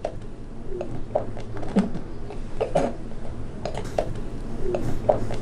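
Short, irregular choking and gasping sounds from a person foaming at the mouth, a dozen or more in quick succession, over a low steady hum.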